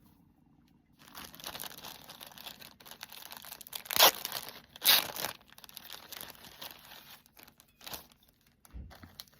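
Packaging being handled, rustling and crinkling, with two loud sharp crackles about four and five seconds in and a few smaller ones near the end.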